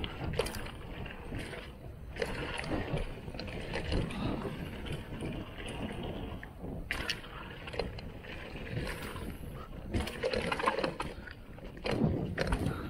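Canyon Neuron 6 full-suspension mountain bike rolling fast along a dirt singletrack: a steady rumble of tyres on packed dirt, broken by frequent sharp clacks and rattles from the bike jolting over the trail.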